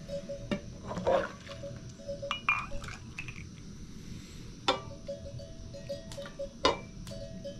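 A small drinking glass and a scoop clinking against an aluminium pot as hot milk is scooped out and poured into the glass: a few sharp clinks, the loudest two about 5 and 7 seconds in.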